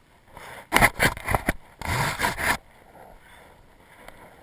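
An aluminium extension ladder clanking and scraping as it is handled: a quick run of knocks about a second in, then a longer scrape.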